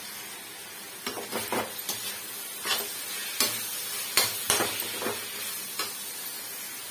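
Spoon scraping and stirring potatoes and cabbage with dry spices in a metal kadhai, over a steady frying sizzle. The scrapes and clinks start about a second in and stop shortly before the end, while the masala is being roasted.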